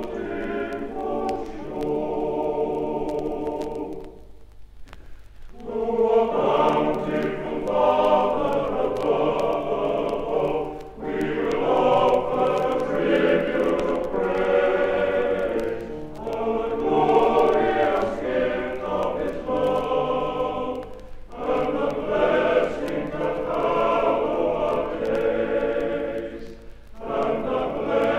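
Male voice choir singing a slow piece in long phrases, with a short break between phrases about every five seconds, over a steady low hum.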